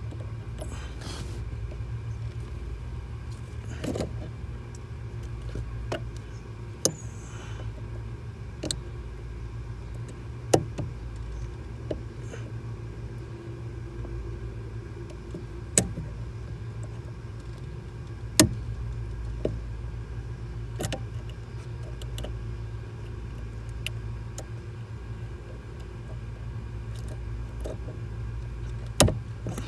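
Sharp metallic clicks and taps, spaced a few seconds apart, as needle-nose pliers work a small part onto the clutch pedal assembly. A steady low hum runs underneath.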